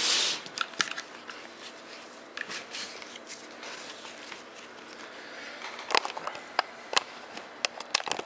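Handling noise from a rifle being set down on a shooting rest and sandbag: a rustle and bump at the start, then scattered light knocks and clicks of the synthetic stock against the rest, bunched together near the end.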